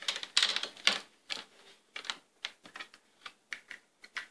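Hands handling a small plastic USB plug and a sheet of paper on a desk: a string of irregular sharp clicks and taps, with a brief rustle and a quick cluster in the first second, then single clicks every fraction of a second.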